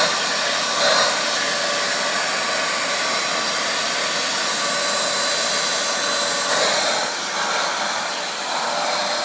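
Vacuum cleaner running steadily with a high whine, used to pull shed hair out of a dog's coat.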